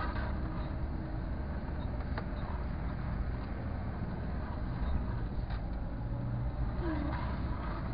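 Car engine running with tyre and road noise, heard from inside the cabin as the car drives slowly: a steady low hum with a couple of faint clicks.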